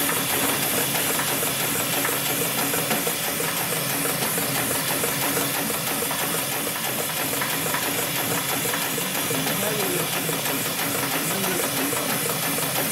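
Industrial sewing machine running steadily at speed, its needle stitching a spiral through layered cotton cloth for a buffing wheel, with a steady hiss over the fast mechanical chatter.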